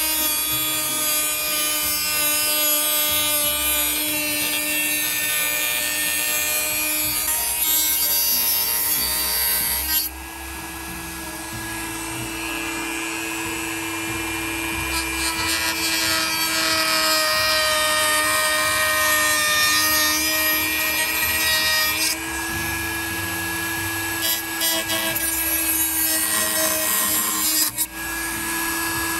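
Handheld rotary tool with a small cutoff disc running at high speed and cutting a notch into the edge of a door frame, a steady whine. Its pitch and loudness shift at about ten and twenty-two seconds in, and it dips briefly near the end.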